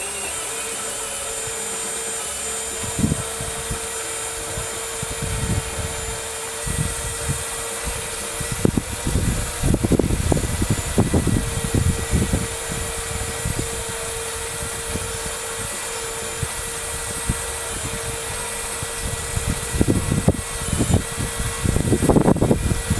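Hydraulic system of a radio-controlled miniature Liebherr 944 demolition excavator working as its long-reach boom rises: a steady pump hum, with irregular low knocks and rattles that come thickest in the middle and near the end.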